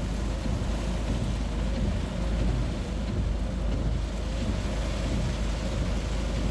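Steady rushing noise of heavy rain, with a strong low rumble from wind on the microphone.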